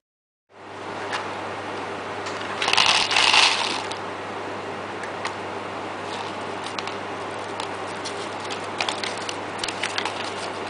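Steady low background hum and room noise with scattered small clicks, and a brief louder rustling noise about three seconds in.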